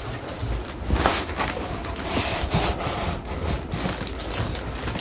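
Cardboard packing pieces of a gaming-chair shipping box being handled, rubbing and scraping against each other and the box in a steady run of short scuffs.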